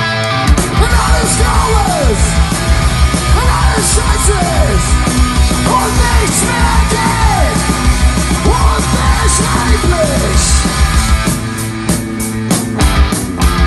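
Live rock band playing loud: guitars, bass and drums with a singer shouting lines that slide down in pitch. About eleven seconds in the vocals stop and hard drum hits stand out.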